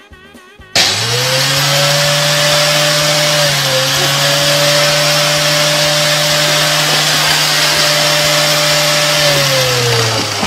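Vacuum cleaner switched on about a second in. Its motor whines up to speed and runs steadily with a loud rush of air, then winds down with a falling whine near the end.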